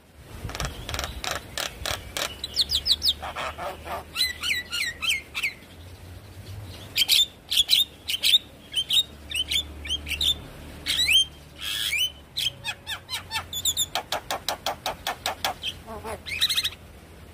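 Javan myna singing a rapid, varied song of sharp clicks, chattering rattles and short whistled notes that slide up and down, broken by brief pauses.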